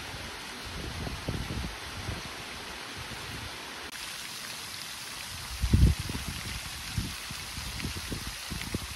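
Steady rush of falling water from a small stepped cascade in a stream. About four seconds in, it gives way to a pond fountain's spray splashing onto the water, with a brighter hiss. Low rumbles come and go, the loudest about six seconds in.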